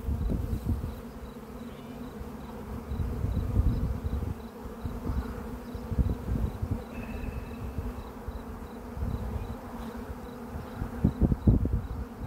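Honey bees buzzing over an opened nucleus hive, a steady hum. Near the end come a few knocks as a wooden frame is worked loose from the box.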